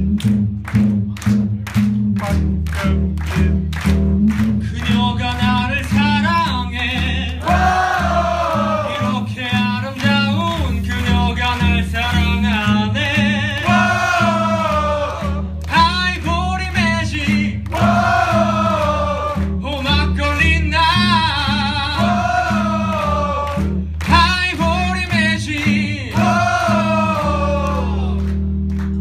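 Live band music: drums, bass and guitar playing, with a singer coming in about five seconds in.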